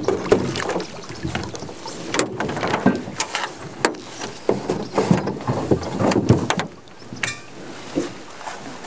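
A wet trap net being hauled by hand over the side of a metal boat: water splashes and drips, and the net, floats and rope knock and rub against the hull. It grows quieter in the last couple of seconds.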